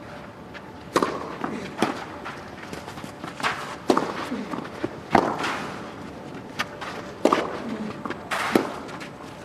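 A tennis rally on a clay court: a serve, then the ball struck by the rackets back and forth, sharp pops every one to two seconds over a quiet crowd.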